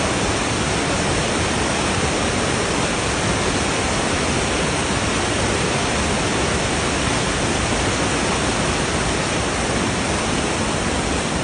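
Fast river water rushing steadily, an even unbroken roar.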